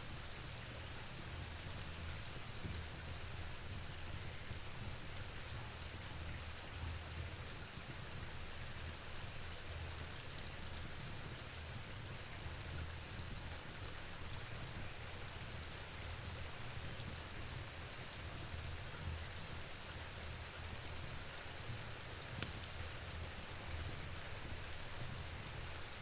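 Steady falling rain with a soft low rumble underneath and scattered faint ticks of drops, one sharper tick late on.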